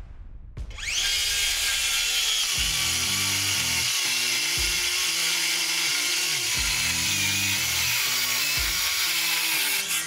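DeWalt DCS565 6½-inch brushless cordless circular saw spinning up about a second in, then cutting steadily through OSB for about nine seconds and stopping near the end. Background music plays underneath.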